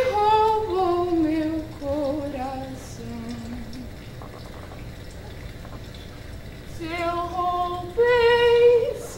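A woman singing a slow song without accompaniment. Her melody falls in pitch over the first few seconds, pauses for about three seconds, then resumes with long held notes near the end.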